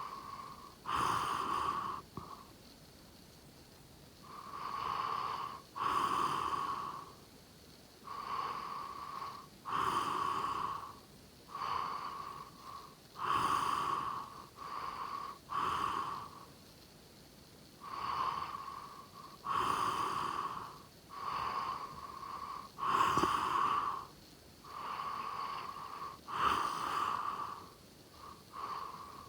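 A person snoring in their sleep: a noisy snore on each breath, often in close pairs, repeating every couple of seconds with short quiet gaps between.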